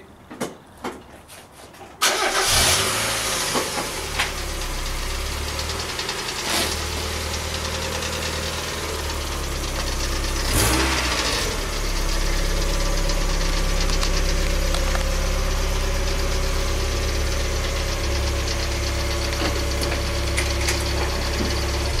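Mazda MX-5 Miata's four-cylinder engine starting about two seconds in, then running steadily at low revs as the car is driven out of the garage, with one brief louder sound around ten seconds in.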